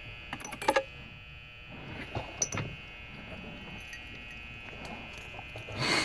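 Brass keys jangling and clicking in the hands while being sorted, in short clusters of sharp clicks: one about half a second in, another around two seconds, and a louder one near the end, over a faint steady hum.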